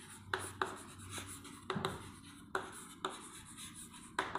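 Chalk writing on a chalkboard: a series of sharp, irregular taps and short scratches as a word is chalked out letter by letter.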